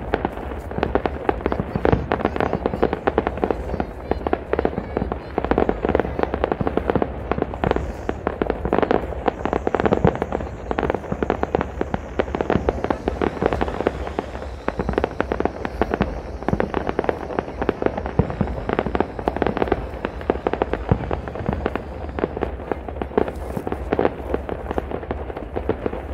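Aerial fireworks going off: a dense, unbroken run of bangs and crackles in quick succession.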